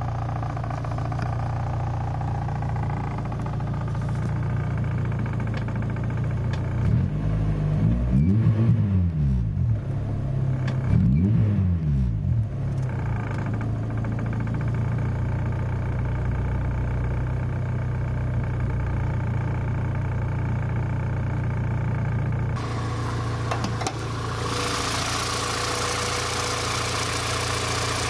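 Honda B18C6 1.8-litre DOHC VTEC four-cylinder idling, revved twice about a third of the way in, each rev rising and falling back to idle. Near the end the sound turns brighter and hissier as it is heard at the open engine bay rather than from the cabin.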